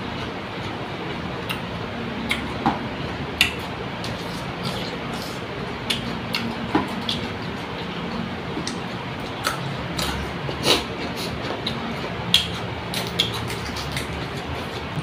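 A person eating: irregular sharp clicks and crunches of chewing and of food being handled on a plate, over a steady background noise.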